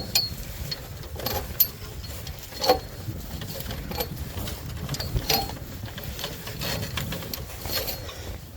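Scattered light knocks and clicks, irregular and spread over several seconds, over a low rumble: handling noise as an attic hatch is closed up and the person moves about at the opening.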